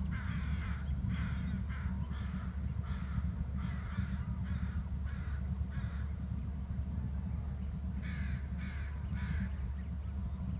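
Bald eagle calling: a run of about ten short, high chattering notes over the first six seconds, then three more about eight seconds in. A steady low rumble lies beneath.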